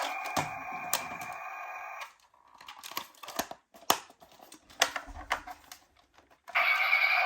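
Toy ambulance's electronic siren sounding steadily, cutting off about two seconds in; then scattered light plastic clicks and taps for about four seconds, before the siren starts again, louder, near the end.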